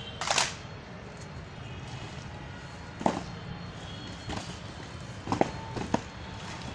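Drill boots stamping on packed earth as cadets march in parade drill: a few sharp, separate stamps a second or more apart, two close together near the end.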